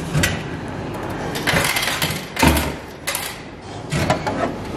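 Ice cream vending machine dispensing: knocking from the mechanism and a deep thud about two and a half seconds in as the boxed ice cream drops into the delivery bin, then clicks near the end as the bin's plastic flap is pushed open.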